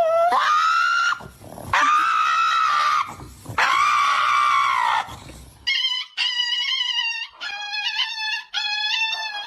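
A dog protesting a nail clipping with three long, high wailing cries of about a second each, each rising at its start. These are followed by a run of shorter high-pitched cries.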